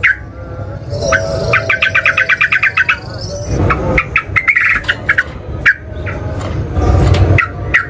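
Yellow-vented bulbul (trucukan) song: loud, sharp chirping phrases, with a fast, evenly repeated run of notes about a second and a half in, the long rapid burst that keepers call ngeropel.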